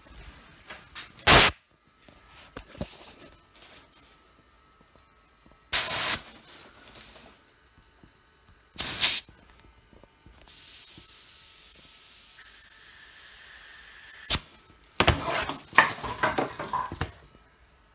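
Compressed air hissing out of a thin nozzle pushed into the air unit of a Nike Air Max 2017 sole, pressurising the leaking air cushion. Three short, loud blasts are spread over the first nine seconds, then a steadier, quieter hiss lasts about four seconds, then a sharp click and a quick cluster of short blasts near the end.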